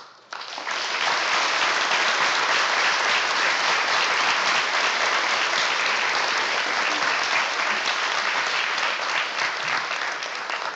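Audience applauding. The applause builds quickly, holds steady, and dies away near the end.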